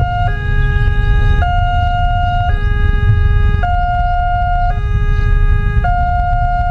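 Electronic warning siren of a railway level crossing, alternating steadily between a higher and a lower tone about once a second over a low rumble. It sounds as the crossing's boom barrier closes, warning of an approaching train.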